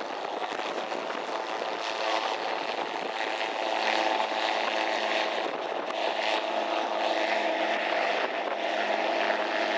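Gyroplane's engine and rear pusher propeller running steadily as it taxis, with a steady engine drone over a propeller hiss that gradually grows louder.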